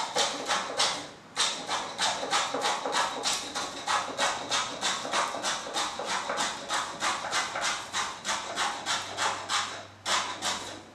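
A sharp hand tool shaving a walnut seat in quick repeated strokes, about three a second, each a short scrape of the blade through the wood as the seat is hollowed. It pauses briefly about a second in and again near the end.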